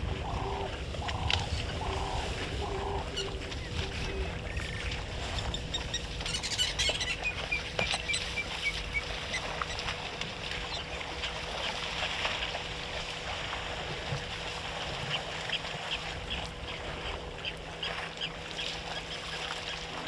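African elephants drinking and stirring the shallow water of a waterhole, a low sloshing and splashing. Birds call over it: a call repeated about twice a second during the first few seconds, and a quick falling series of short notes about six seconds in.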